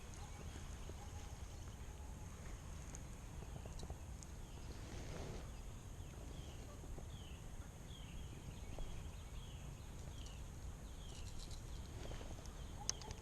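Outdoor ambience: a steady low rumble of wind on the microphone, with a run of short falling chirps about twice a second in the middle.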